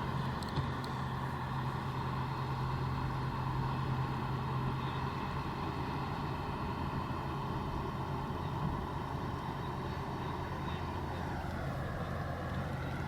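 A motor engine running steadily with an even hum. Its pitch dips slightly near the end.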